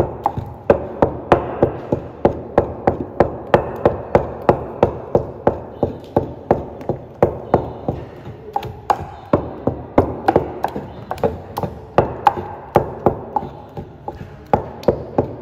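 Wooden pestle beating thick blended bean paste in a wooden mortar, knocking rhythmically about three times a second. The beating stands in for a hand mixer, whipping air into the akara batter to make it fluffy.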